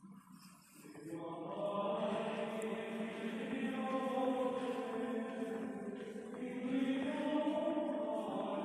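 Chanted singing with long, slow held notes, coming up about a second in.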